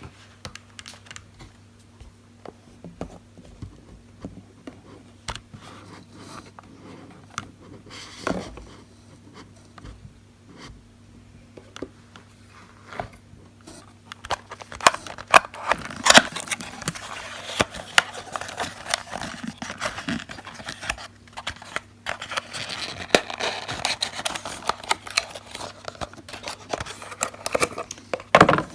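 Packaging being handled and unwrapped by hand: crinkling, scratching and scraping with scattered clicks, sparse at first and much busier from about halfway through.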